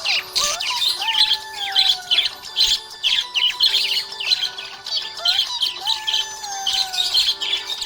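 Budgerigars chirping and warbling in a busy, continuous chatter of quick high notes.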